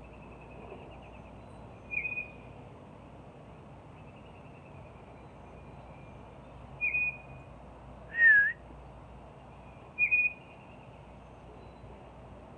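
Short high whistles every few seconds, the loudest a breathy, wavering whistle about eight seconds in, with faint bird twittering between them.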